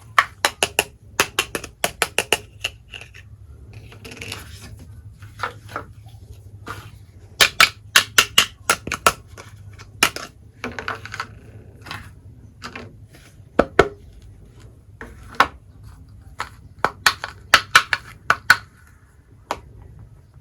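Quick, irregular clicks and taps of small hard toy kitchen pieces being handled and set down, often several in a rapid cluster.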